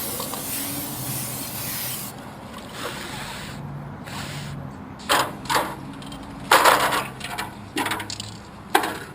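Aerosol spray-paint can hissing in one steady spray of about two seconds, then a couple of shorter spurts. In the second half, a run of sharp clicks and clatters.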